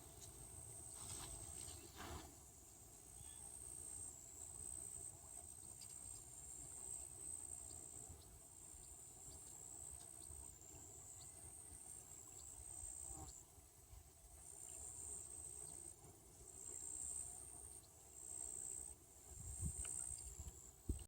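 Insects chirring in a continuous high-pitched, pulsing chorus, faint, over a low outdoor rumble with a few soft knocks.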